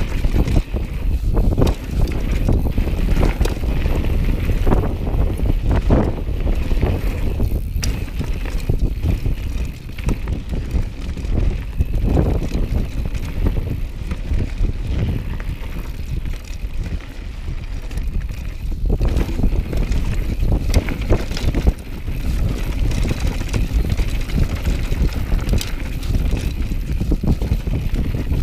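Mountain bike descending a rocky gravel singletrack: wind buffets the bike-mounted camera's microphone in a steady low rumble, while the tyres and the frame and suspension rattle and knock over stones.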